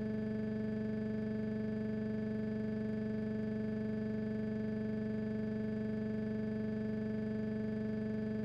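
A steady sustained drone: one unchanging pitched tone with many overtones, held without a break.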